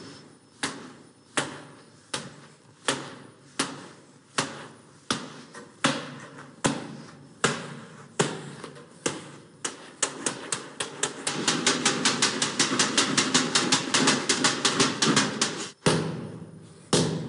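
Hand strikes against a hanging cloth bag filled with iron shot, for hand conditioning: about a dozen evenly spaced blows, a little under a second apart, then a fast flurry of about five blows a second for several seconds, then one last blow near the end.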